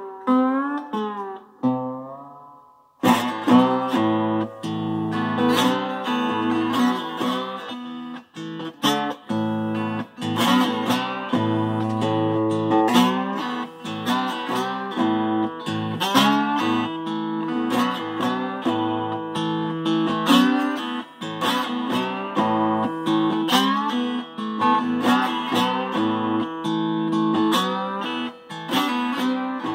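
Electric guitar played solo: wavering, bent notes fade out, then about three seconds in strummed chords and picked single notes start again and carry on.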